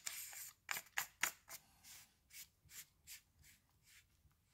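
Flashlight tail cap being screwed onto the Olight M2R Pro's aluminium body by hand: the threads rasp in a run of short scratchy strokes, about a dozen, loudest at first and fading as the cap is tightened.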